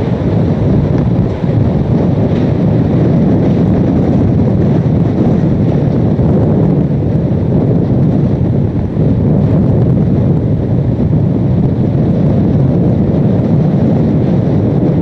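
Hurricane-force wind blasting across the microphone: a loud, steady low rumble of buffeting with no let-up.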